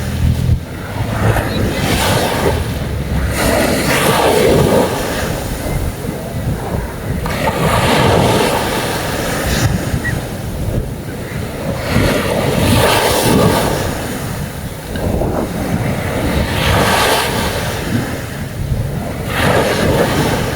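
Sea waves breaking and washing onto a beach, the surf swelling and easing every few seconds, with wind on the microphone.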